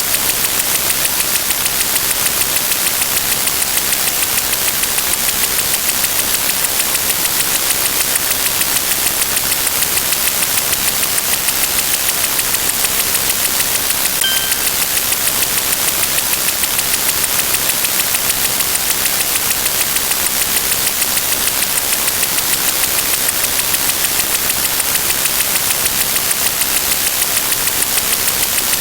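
Steady, loud hiss of static-like white noise, brighter toward the top end, with a brief faint beep about fourteen seconds in.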